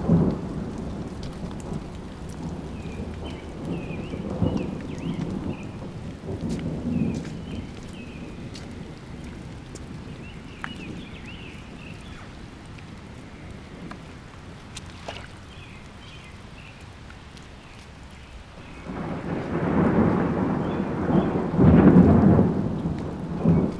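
Thunder rumbling in a rainstorm: a few low rumbles in the first half, then a longer, louder roll near the end. Faint high chirps come and go in the quieter middle.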